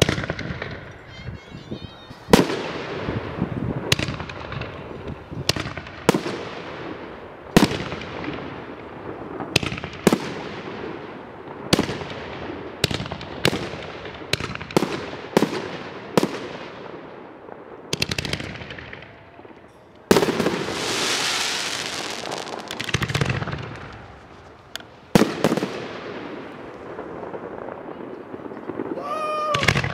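Aerial fireworks display: a string of sharp bangs from bursting shells, one to two seconds apart, each followed by an echo. About twenty seconds in comes a few seconds of steady hiss, and a short whistle sounds just before the end.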